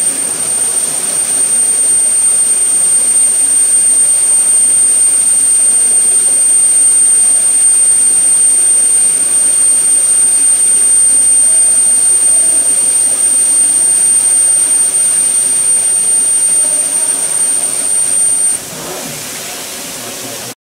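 CNC induction quenching machine running: a steady hiss of water quench spray over the heated shafts, with a thin, steady high-pitched whine from the induction heater. About 18 seconds in, the whine cuts off and the hiss drops to a much quieter level.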